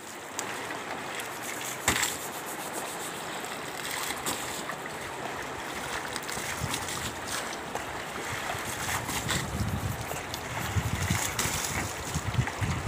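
Shallow river water running steadily over stones, with a few sharp splashes as water is scooped with a plastic dipper and thrown. A low wind rumble on the microphone comes in over the last few seconds.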